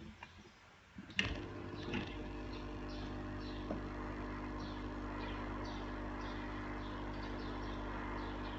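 A couple of clicks, then a little over a second in a small electric motor switches on and runs with a steady hum.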